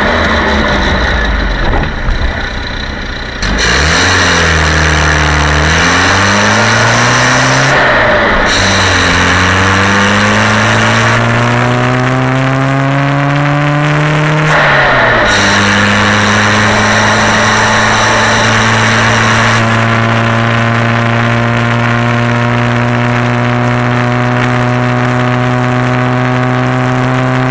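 Classic Mini's 998 cc A-series four-cylinder engine pulling a moving car: the revs dip twice early on, then climb steadily, fall sharply at a gear change about halfway through, and then hold almost level with a slow rise.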